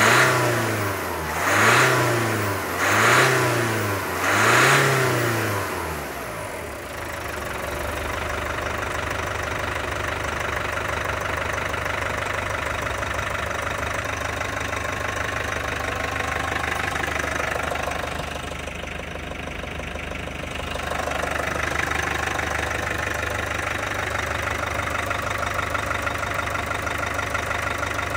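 LDV D90's SAIC π 2.0-litre bi-turbo diesel engine, bonnet open, blipped four times in quick succession, each rev rising and falling, then settling to a steady idle.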